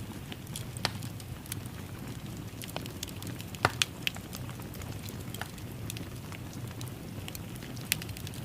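Wood fire in a fireplace crackling: a steady low rumble of flames with scattered pops and snaps. A few sharper pops come a little before the middle and again near the end.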